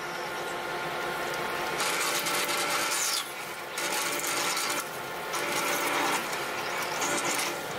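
Colchester Master 2500 metal lathe running while a twist drill is fed from the tailstock into the spinning workpiece under flood coolant: a steady whirr from the machine under a hissing, scraping cut. The cutting noise drops away briefly twice, around three and five seconds in.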